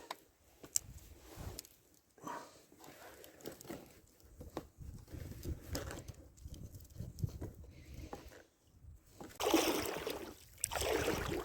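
Oars of a small rowboat dipping and pulling through the water in uneven strokes, with soft sloshing. The two loudest splashing strokes come near the end.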